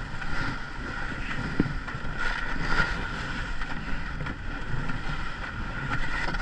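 Ice canoe moving on the river: a steady rush of wind and water with a few light knocks.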